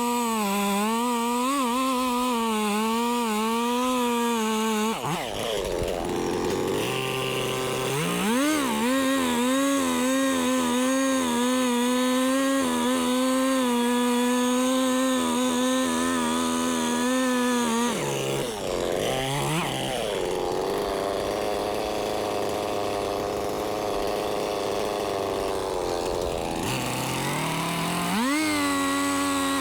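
Gas chainsaw running at high throttle while cutting into a tree trunk. Three times the engine note drops sharply and climbs back up, as the throttle is eased and reopened or the chain loads in the cut.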